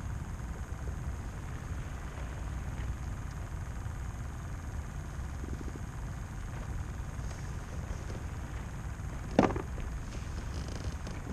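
Steady low rumble of wind buffeting the microphone on open water, with one short, sharp, louder sound a little over nine seconds in.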